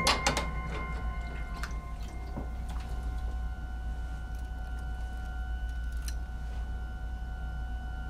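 Dishes knocking together at a kitchen sink: a sharp clink at the start, with a dish ringing for about a second, then a few lighter knocks, over a steady low hum.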